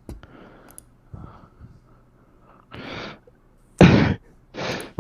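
A person breathing and exhaling close to a microphone: a few short breathy puffs, the loudest about four seconds in.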